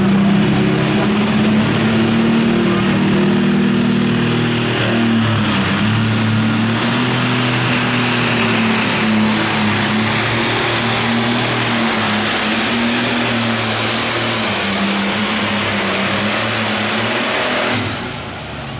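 Diesel engine of a John Deere 4020 Super Farm pulling tractor running flat out under load as it drags the sled down the track. A high whistle rises about four seconds in and holds, and the engine drops off near the end as the pull finishes.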